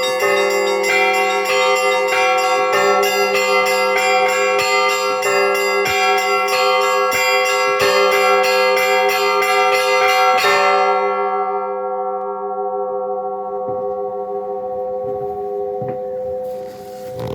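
Russian Orthodox church bells rung by hand: rapid strikes of the small bells over the steady hum of the larger bells, stopping about ten seconds in, after which the bells ring on and slowly fade. A faint knock near the end.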